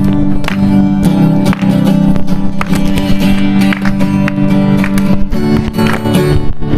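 Music led by a strummed acoustic guitar, with sustained chords and a regular strumming beat.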